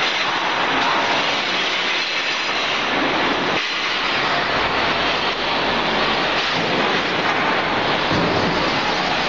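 Steady, loud, even machine noise from a hooded CRT dismantling station while a cathode-ray-tube glass funnel is worked on the machine table.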